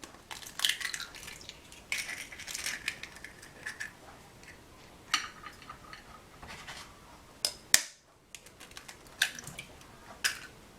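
Eggs being cracked into a pan: several sharp taps and crackling shell, mixed with clinks of kitchenware.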